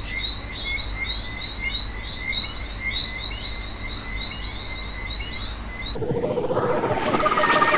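Repeated short, high chirping calls, several a second, over a thin steady high whine and a low hum. About six seconds in they cut off abruptly, giving way to a louder, noisy sound with a couple of steady mid-pitched tones.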